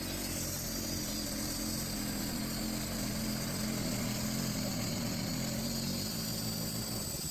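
Homemade band sawmill running steadily, its motor holding an even pitch with a hiss above it.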